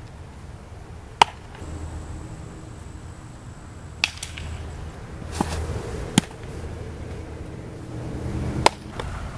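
Sharp pops of a baseball smacking into leather gloves during bullpen pitching, four of them spread out over several seconds, the loudest about a second in.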